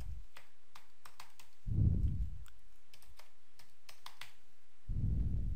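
Typing on a computer keyboard: a quick, uneven run of light key clicks as a word is typed out. Two low, muffled rumbles stand out, about two seconds in and near the end.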